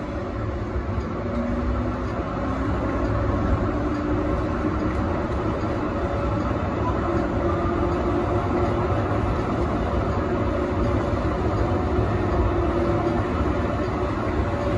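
Yarra Trams A2-class tram running along the track, heard from inside at the front: a steady rumble of wheels on rail with a few faint steady tones above it.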